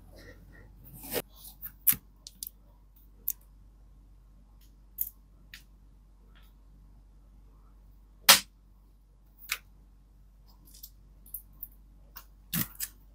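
Packaging handled during an unboxing: scattered sharp clicks and taps with faint rustling, and one louder knock about eight seconds in.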